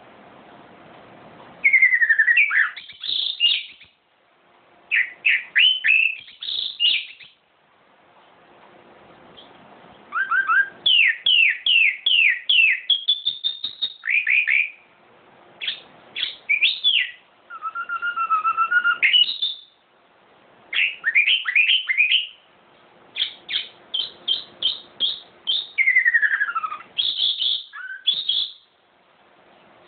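A songbird singing in short phrases of quick, sliding whistled notes, with pauses of a second or two between phrases; a faint steady hum sits under the pauses.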